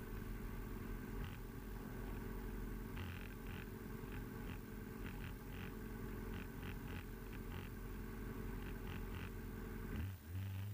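Motorcycle engine running at a steady speed, heard muffled through a helmet Bluetooth headset microphone. Near the end the engine note drops, then rises and falls again as the throttle changes.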